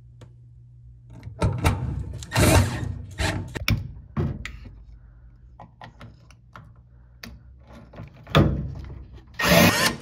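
Cordless drill/driver running in several short bursts as it drives out the screws holding the washer's drain pump, with clicks and knocks of the plastic pump housing and tool being handled between the bursts.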